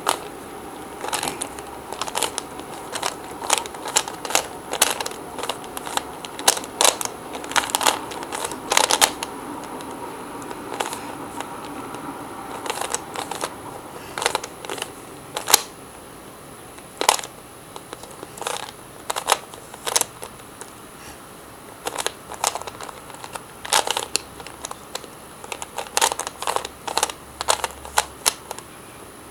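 A Rubik's cube being turned by hand: irregular plastic clicks and clacks as its layers are twisted, some coming in quick runs, over a steady background hiss.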